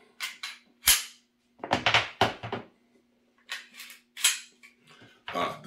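Sharp metallic clacks of an empty Canik pistol's slide being racked back and let go, several times, the sharpest about a second in.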